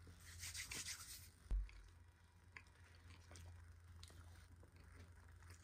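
Faint crackly scratching and rubbing from dry cornstarch being chewed, with scattered small clicks and a soft low thump about a second and a half in.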